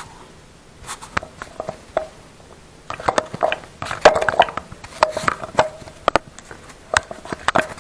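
Recording phone being handled and repositioned right at its microphone: a run of sharp clicks and knocks with rubbing and a few short squeaks, busiest from about three seconds in.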